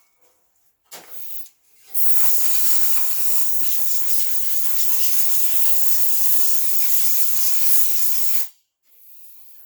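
Compressed air blowing out the chainsaw's dirty air filter: a short puff about a second in, then one steady, loud hiss lasting about six seconds that cuts off suddenly.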